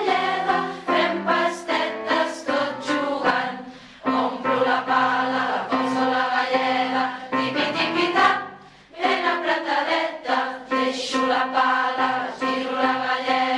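Background music: a song sung by a group of voices, in phrases with short breaks about four and nine seconds in.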